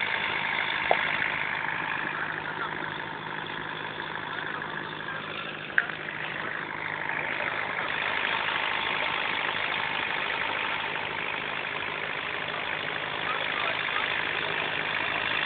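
Fishing launch's engine running steadily under way, with rushing wind and water over it and two short knocks, about a second in and near six seconds.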